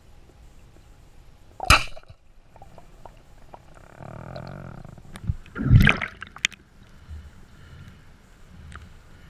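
Underwater shot of a modified Niletec 110 speargun: a sharp crack about two seconds in as it fires. A louder water burst with a heavy low thump follows about six seconds in.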